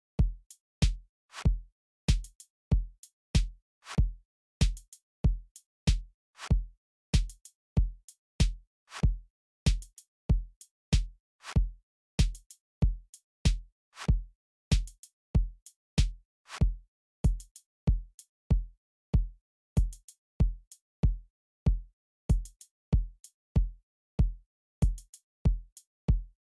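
Background music: a drum-machine beat with a deep kick drum and sharp clicks on a steady, even pulse.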